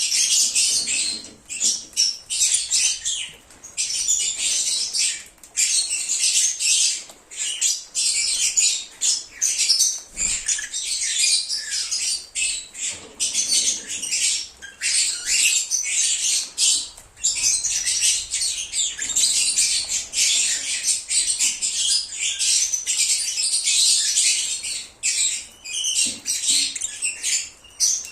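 A group of lovebirds (Agapornis) chirping and squawking: a dense, rapid, high-pitched chatter with only brief lulls.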